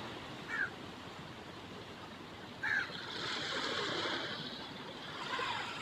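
Water splashing and rushing, fuller for a couple of seconds in the middle, with two short high chirps, one about half a second in and one near three seconds in.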